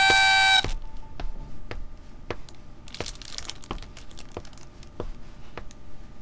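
A party horn blown in one loud, steady honk that stops after about two thirds of a second. Then footsteps, a little under two a second, with a brief rustle about three seconds in.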